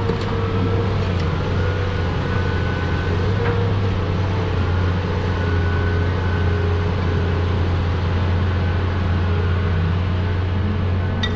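Caterpillar 330 hydraulic excavator running steadily: a deep engine drone with higher whining tones that shift in pitch.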